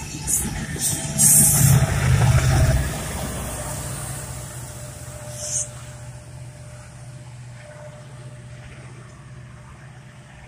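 The tail end of a double-stack container freight train rumbling past at close range, loudest in the first few seconds and then dying away. After that, a quieter steady hum of road traffic.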